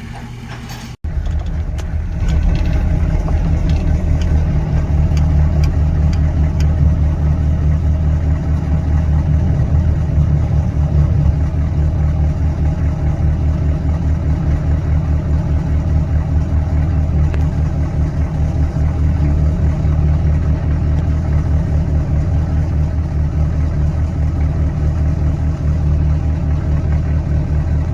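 Ford F-450's 6.7-litre V8 turbo-diesel running steadily under load, a loud low drone that cuts in abruptly about a second in.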